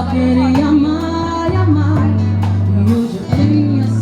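Live band music: guitar and held bass notes under a voice singing a wavering melody.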